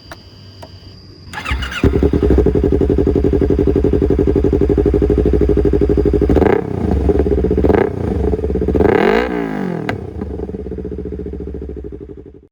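Yamaha R25's parallel-twin engine breathing through an aftermarket Proliner TR1R short exhaust. It is started about a second and a half in and settles into a steady idle, with two short throttle blips and then one higher rev that rises and falls back to idle. The sound fades out near the end.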